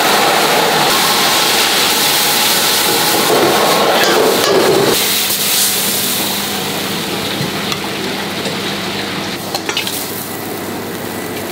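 Minced meat stir-frying in a hot wok: a steady sizzle with the metal wok ladle scraping and tossing the food. The sizzle is strongest for the first few seconds, as sauce goes into the pan, then eases, with a few sharp clanks of the ladle on the wok near the end.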